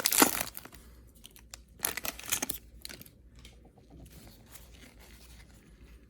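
Trading card pack's wrapper being torn and crinkled open, with sharp rips at the start and again about two seconds in, then fainter rustling and crackling.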